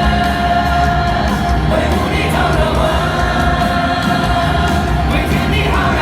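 Live concert music: singing in long held notes with vibrato over a full band.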